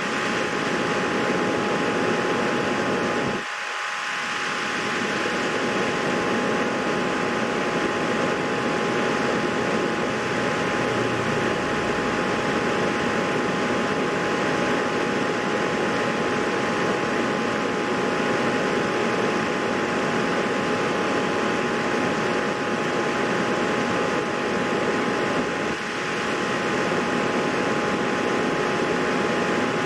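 Steady whooshing background noise with two faint steady high tones in it, briefly broken off about three and a half seconds in.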